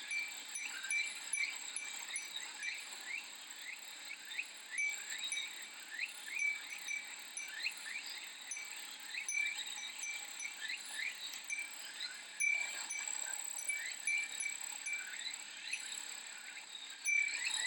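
Japanese glass wind chime (fūrin) tinkling again and again at the same few bright pitches, over a continuous high insect drone from summer cicadas, with many short rising chirps mixed in.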